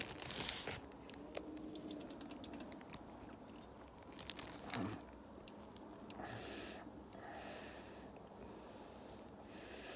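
Faint, rapid small crackles and clicks of dry, uncooked yellow rice grains, thickest in the first few seconds, followed by softer hissing sounds.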